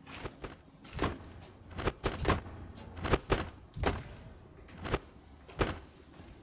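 Footsteps crunching over rubble and broken plaster on a debris-strewn floor: a string of uneven, sharp steps, some in quick clusters.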